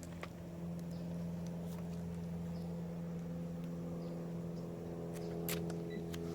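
Bridge Raptor robotic pool cleaner's motors humming steadily, with a few faint clicks.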